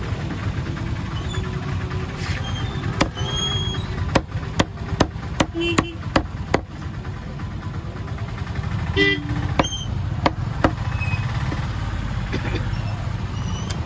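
Cleaver chopping a large fish on a wooden block: a series of sharp, uneven knocks, thickest in the first half and again a little later, over a steady low rumble of traffic.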